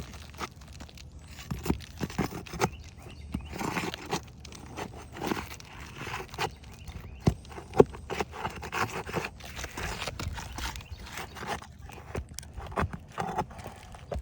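Asphalt roof shingles being lifted and pried by hand, with irregular scraping, crackling and light knocks, the sharpest knock about eight seconds in.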